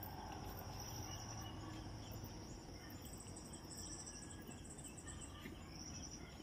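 Insects trilling in short repeated bursts, with a second, higher-pitched trill joining in through the middle, over a quiet low background rumble.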